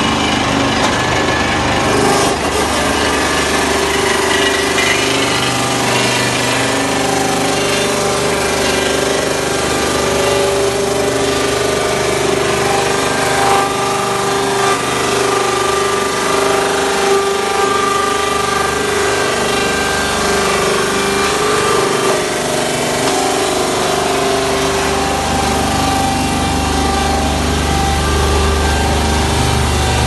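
Log-to-sawdust machine running under load: its rotating blades grind wood logs fed in on the belt conveyor, a loud continuous grinding and rasping over a steady drone.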